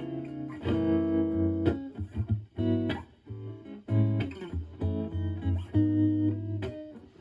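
Clean electric guitar, a Fender Stratocaster with HSH pickups through a Marshall Valvestate clean channel, played through a Joyo JF-09 analog optical tremolo pedal: a series of chords and short single-note phrases with brief pauses between them.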